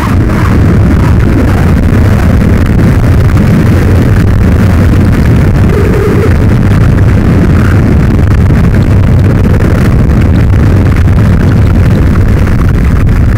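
Electronic noise music played live on a mixer and effects boxes: a loud, steady wall of noise, heaviest in the bass, with no beat or tune.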